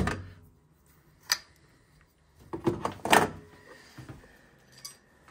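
Hand-handling clatter of pliers and plastic-and-brass boiler parts. A sharp click comes just over a second in, then a louder run of knocks and clatters around three seconds in, with a couple of light taps near the end.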